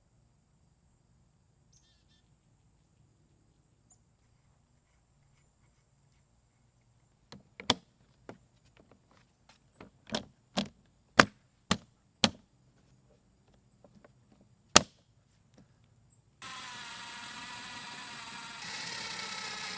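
A run of sharp knocks and clicks from tools and parts being handled, then a steady pour of liquid that grows a step louder near the end: engine oil draining during the generator's oil change.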